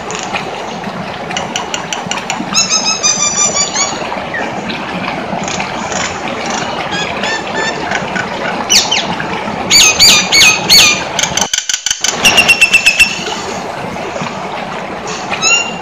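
Nias hill myna calling in a varied string of whistles, squawks and quick clicking notes over a steady hiss. The loudest, sharpest calls come about nine to eleven seconds in, followed by a rapid run of notes that ends in a held whistle.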